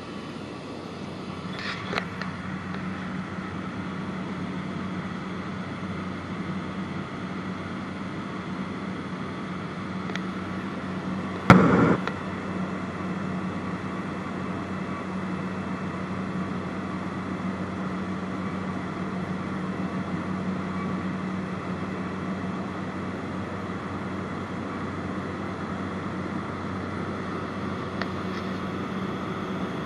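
Propeller plane's engine and propeller running steadily in flight, a constant drone with a low hum, as heard from inside the cabin. A single sharp knock stands out a little before the middle.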